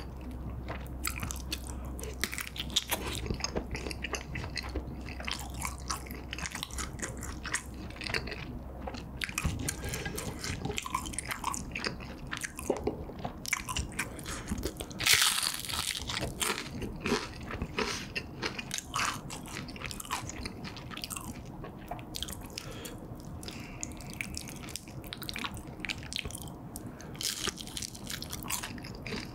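Close-miked eating sounds: chewing of a cheese-dipped kielbasa sausage, then about halfway a loud crisp bite into a fried battered piece, followed by crunchy chewing and more bites.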